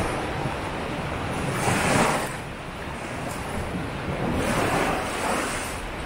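Sea waves breaking and washing up a beach, a steady hiss of surf that swells twice, about two seconds in and again around five seconds.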